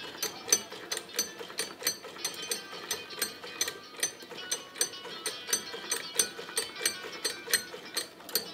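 Background music with a fast, even ticking beat, about three clicks a second, over light instrumental tones.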